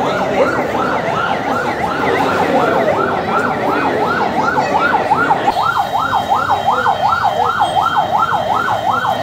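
Emergency-vehicle electronic siren in a fast yelp, rising and falling about three times a second. It sounds over crowd noise that drops away about halfway through, after which the siren stands out more clearly.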